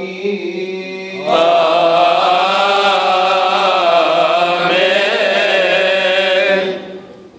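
Coptic liturgical chanting: a low note is held, then about a second in a loud, long melismatic sung phrase starts over it, slowly bending in pitch without a break, and it dies away near the end.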